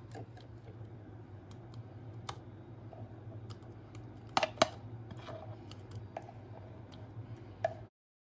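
Thick milkshake poured from a blender jug into a glass: scattered light clicks and taps of jug and glass, with two louder knocks about four and a half seconds in, over a steady low hum. The sound cuts off suddenly near the end.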